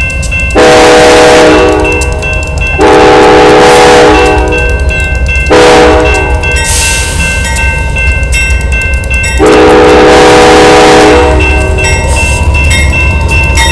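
Amtrak P42DC locomotive's Nathan K5LA five-chime air horn sounding the grade-crossing signal at close range: two long blasts, a short one, then a final long blast. The diesel engine rumbles low underneath.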